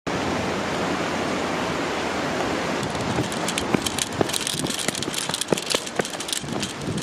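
Steady rush of river water. From about three seconds in, footsteps crunch on a gravel path, with crackling knocks from the handheld camera over them.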